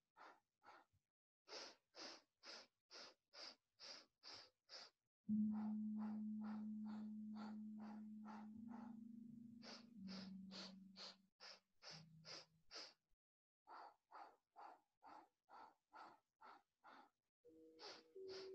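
A person doing Kundalini segmented breathing: short, sharp breath strokes about two a second, in sets of eight, alternating eight strokes in with eight strokes out. Soft background music with long held low notes comes in about five seconds in, changes pitch a few times and fades, and more held notes enter near the end.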